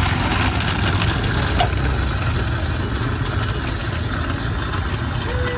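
Steady street traffic noise, a low rumble of engines running, with a single short click about a second and a half in.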